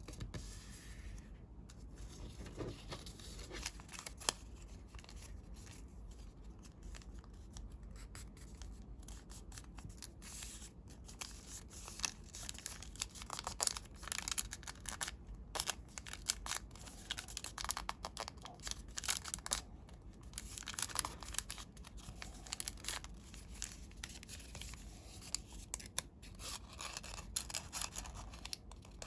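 Square colored origami paper being folded and creased by hand: crisp rustling and crinkling with many short sharp crease snaps.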